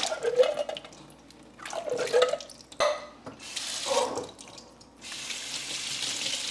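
Canned Great Northern beans being drained and rinsed in the kitchen sink: three short clunks, then from about five seconds in the tap runs steadily over the beans.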